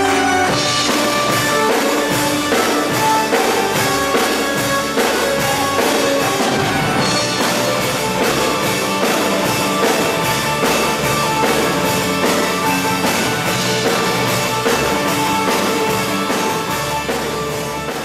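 Live band playing a rock-style song, with a drum kit keeping a steady beat under guitar and other instruments.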